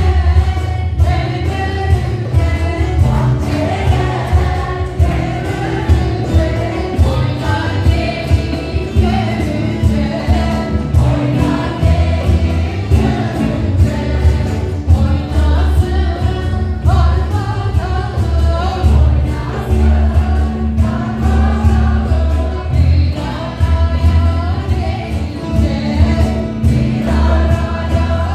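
A choir singing a Turkish folk song, accompanied by strummed acoustic guitars and a bağlama (long-necked saz), in a steady rhythm.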